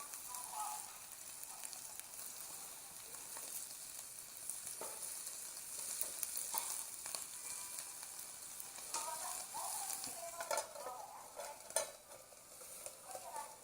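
Burning newspaper crackling and hissing in a fire, with scattered sharp pops and one louder snap near the end.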